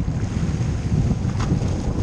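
Wind buffeting the microphone in a dense low rumble, over waves sloshing against a small boat's hull, with a faint tick about one and a half seconds in.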